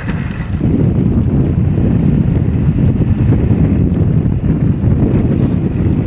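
Wind buffeting the microphone: a loud, rough, low rumble that stays heavy and gusty throughout.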